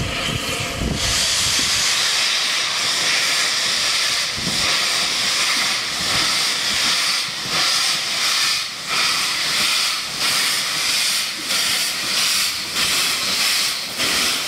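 Steam locomotive venting steam: a steady hiss starts about a second in. In the second half it pulses in a quick, uneven rhythm.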